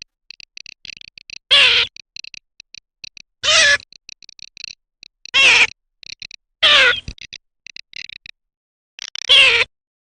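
Garganey calling: five loud calls, one about every two seconds, each falling in pitch. Between them come short, quick, dry clicking rattles.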